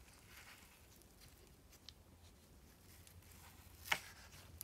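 Faint rubbing and handling of a sheet of watercolour paper pressed onto an inked lino block. About four seconds in, one short sharp sound as the sheet is peeled off the block.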